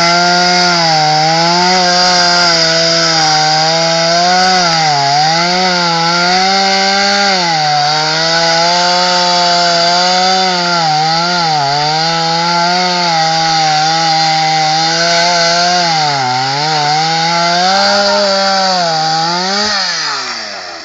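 Two-stroke chainsaw engine running at high revs, its pitch dipping briefly several times, then slowing as the throttle is released near the end.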